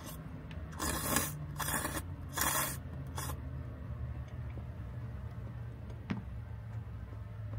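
Noodles slurped from a bowl held to the mouth: three quick slurps about a second in and a shorter one after them, then a light knock as the bowl is set down on a wooden tray, over a low steady hum.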